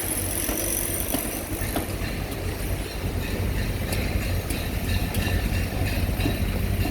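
Heavy earthmoving machinery working: a steady low diesel rumble with light scattered clanks and squeaks.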